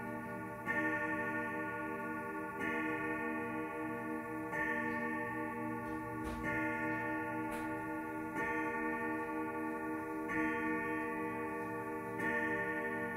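Howard Miller grandfather clock striking eleven on its hour gong. The strokes come slowly, about one every two seconds, with seven of them falling here, and each rings on into the next.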